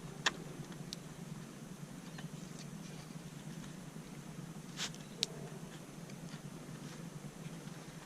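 A few light, sharp clicks and taps as the radiator and fan assembly and its parts are handled, the clearest a pair a second or so in and another close pair about five seconds in, over a faint steady low hum.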